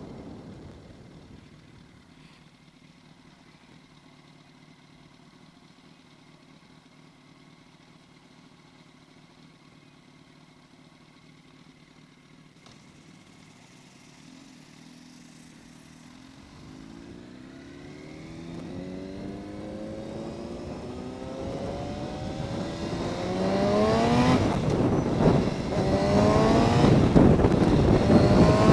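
Yamaha R1 inline-four motorcycle engine ticking over quietly, then accelerating hard. Its note climbs, drops back at each upshift and climbs again, several times, growing louder through the gears.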